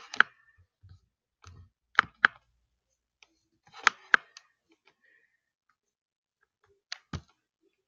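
Computer mouse clicking: four pairs of sharp clicks, a pair about every two seconds, as buttons on a web page are clicked.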